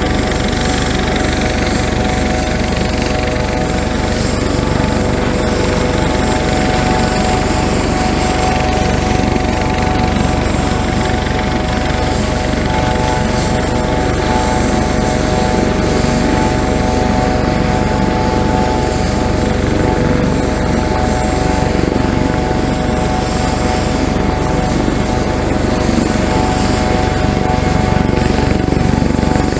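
Helicopter running steadily, its rotor and turbine noise continuous with a few steady whining tones and no change in pitch or loudness.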